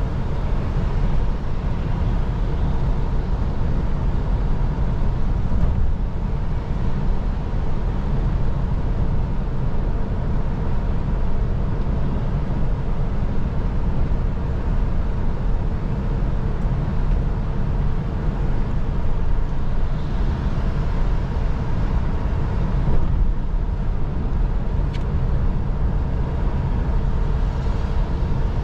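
Steady low rumble inside a Volvo lorry's cab cruising on a motorway, from its diesel engine and its tyres on the wet road.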